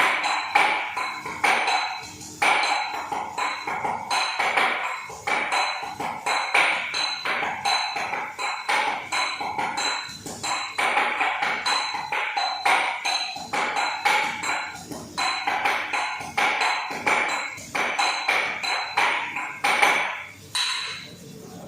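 Garlic being prepared for the pan with rapid, repeated strikes at about two to three a second, each with a ringing, metallic clink. The strikes pause near the end.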